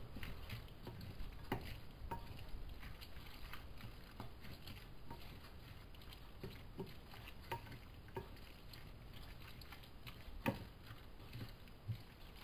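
A spatula stirring sautéed onions and raw eggs in a ceramic bowl: faint, irregular soft wet clicks and squishes, with one sharper tap against the bowl about ten seconds in.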